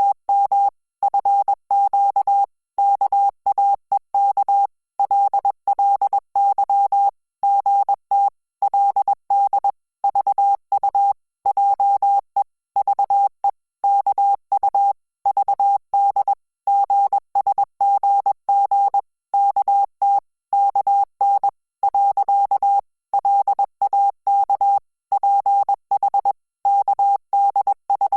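Morse code sent at 20 words per minute, spelling out Korean Hangul text: a single steady tone switched on and off in short dots and longer dashes, with gaps between characters and words.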